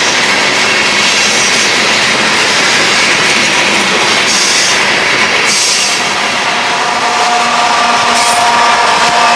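Covered hopper cars of a freight train rolling past, with a steady rumble and clatter of wheels on rail and two brief high wheel squeals about four and five and a half seconds in. Near the end the sound changes to a steadier hum with a few held tones.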